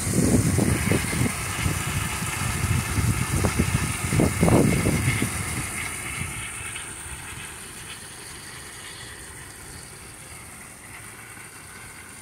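Water gushing from a yard hydrant into a plastic wading pool, with low rumbling on the microphone and a loud burst about four seconds in. It dies away a little past halfway, leaving a quiet outdoor background.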